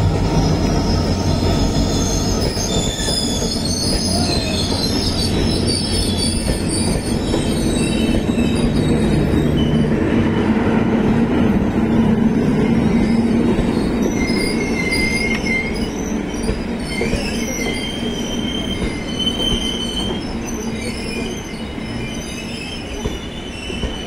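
Indian Railways diesel locomotives led by a WDP4D and their train passing close by: deep diesel engine hum, loudest at the start, over a steady rumble of wheels on the rails, with high steel-wheel squeals coming and going as the coaches roll past.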